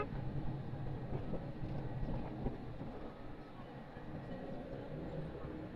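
Steady low rumble of a car's engine and tyres heard from inside the cabin while it drives along a narrow paved lane.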